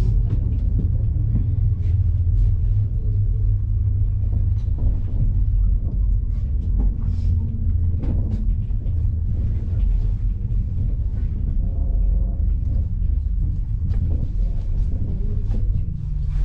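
Steady low rumble of a moving cable car cabin riding its cables, with faint clicks and knocks scattered through.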